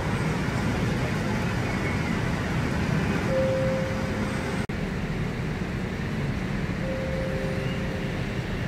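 Steady noise of heavy city road traffic, motorcycles and cars, with a single steady tone held for about a second, twice.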